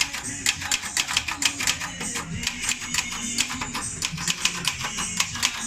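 Vintage portable typewriter being typed on: quick, uneven clacks of the type bars, several a second, throughout. Background guitar music plays underneath.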